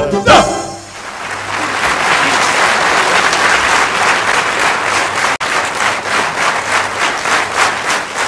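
A song's band music ends about half a second in, and a live audience applauds.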